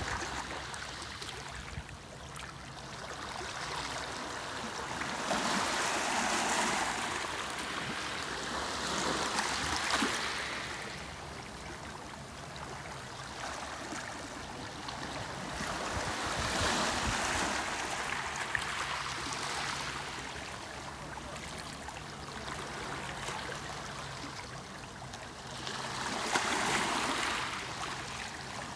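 Small sea waves washing into a rocky inlet over pebbles and draining back out, a hissing rush of foam that swells every several seconds and then eases.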